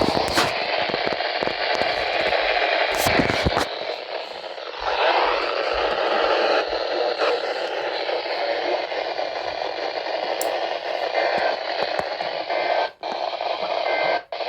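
Weather radio receiver hissing with static, the audio narrow and band-limited like a weak, distant NOAA Weather Radio signal. It cuts out briefly twice near the end.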